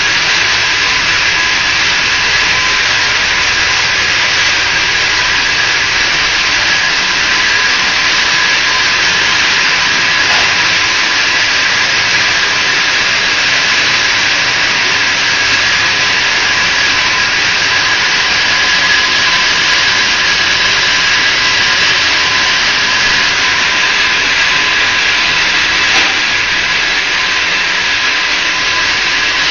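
Wire netting machinery running: a loud, steady hiss-like mechanical noise with a few faint high steady tones in it.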